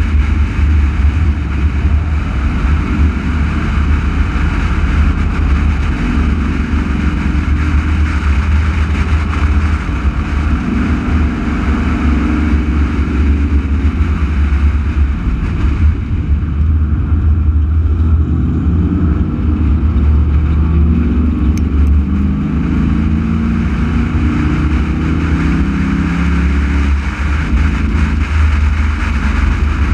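Race car engine running hard at speed, heard from the car itself, its pitch rising and falling as the driver works through the lap, over a heavy low rumble. The sound eases briefly about halfway through.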